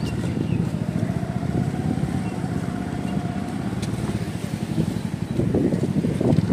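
Motorcycle engine running as the bike is ridden at low speed, heard from the rider's seat.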